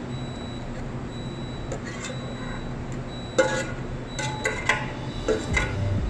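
Metal pan knocking and clinking against a metal tube mould as thick strawberry syrup is tipped out of it. The first half holds only a steady low hum; the knocks start sharply about halfway through and come several times over the next two seconds.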